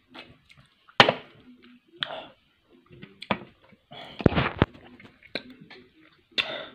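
A series of knocks and clicks from handling objects close to the microphone: a drinks can set down on a table, the loudest knock about a second in, then a hand rubbing and fumbling against the phone about four seconds in.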